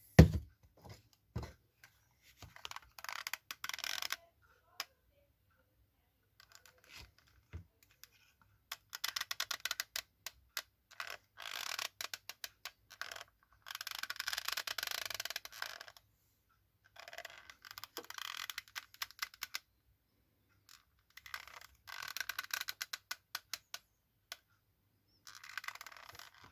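Hot glue gun being worked: spells of rapid clicking and rasping a second or two long, several times over, with quiet gaps between.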